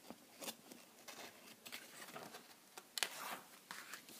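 Faint scattered clicks and soft rustles over low room tone, a little louder about three seconds in.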